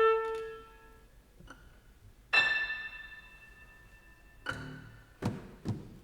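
Sparse contemporary chamber music for clarinet, violin, double bass, guitar and piano: isolated notes sounding one at a time and ringing out into near quiet, the brightest a struck note about halfway through, followed by two short sharp knocks near the end.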